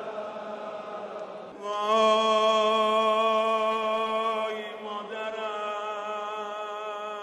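A man's voice, amplified through a microphone, sings long held notes of a Shia mourning chant. There are two sustained notes of about three seconds each, and the first one, about a second and a half in, is the loudest.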